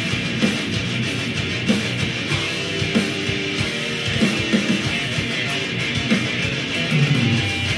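A live guitar jam in a heavy rock style, played loud and without a break, with regular accented hits.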